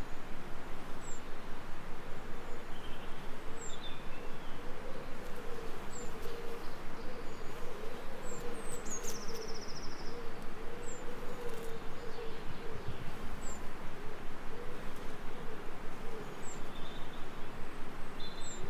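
Nature ambience: a bee buzzing with a wavering pitch over a steady hiss. Short, high bird chirps come every two or three seconds.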